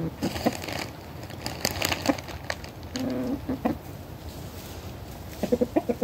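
Chickens clucking in short bursts, a few clucks about three seconds in and a quicker run of clucks near the end. A rustling, crackling noise fills the first two seconds.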